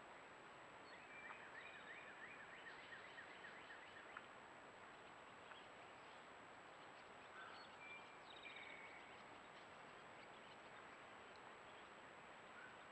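Quiet outdoor ambience with faint distant birdsong: a series of short falling notes, about three a second, from about a second in for some three seconds, then a few scattered chirps. A steady high-pitched tone and a faint hiss sit under it throughout.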